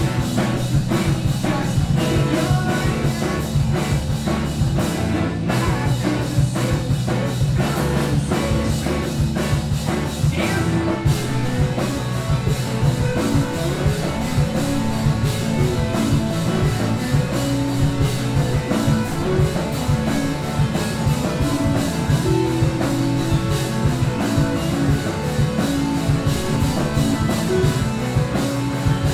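A rock band playing live: electric guitar and drum kit, loud and dense, with a steady run of drum hits throughout.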